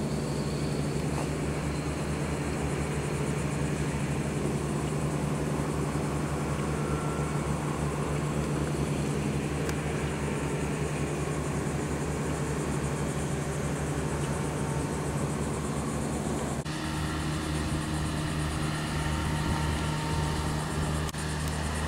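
An engine running steadily with an even low drone, which shifts abruptly in tone about 17 seconds in.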